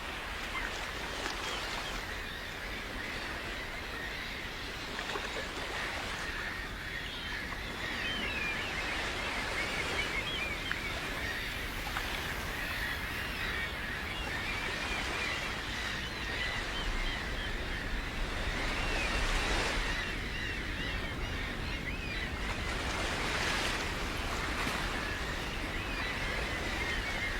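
Coastal nature ambience: many birds calling in short, quick chirps over a steady low rumble.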